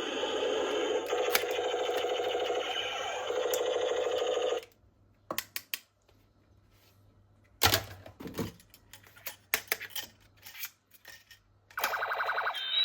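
A battery-powered toy gun's electronic sound effect: a rapid pulsing electronic tone that stops after about four and a half seconds. Scattered plastic clicks and knocks follow, and the pulsing effect starts again near the end.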